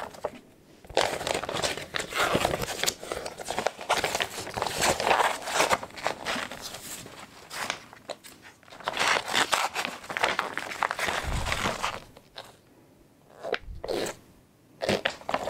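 Paper and plastic packaging crinkling and rustling as a cross stitch kit is opened and its large printed paper pattern sheets are pulled out and unfolded. It comes in two long stretches with a short break about halfway, then a few brief rustles near the end.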